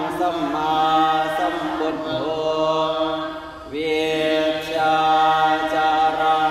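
Monks and laypeople chanting Pali verses in unison on long held notes, the Thai Buddhist evening chanting, with the pitch gliding at the ends of phrases. The voices drop briefly for a breath about three and a half seconds in.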